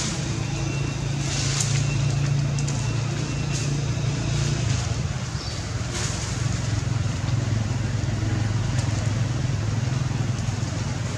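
Steady low engine hum, like a motor vehicle running, with a few faint clicks over it.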